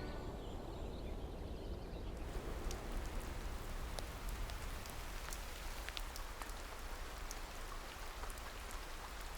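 Rain falling, with individual drops tapping at random over a steady hiss. It comes in about two seconds in.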